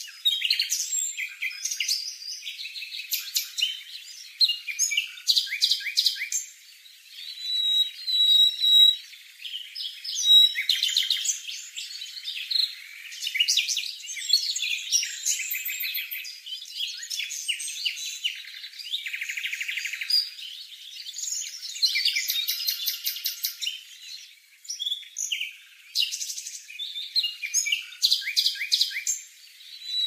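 Shrill, rapidly repeated begging calls of a fledgling cuckoo being fed by a small songbird foster parent. The calls come in quick runs of short high notes, with brief lulls between runs.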